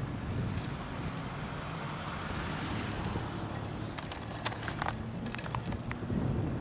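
Wind on the microphone and tyres rolling over pavement during a bicycle ride, a steady low rumble with hiss. A few sharp clicks and rattles come about four to five seconds in.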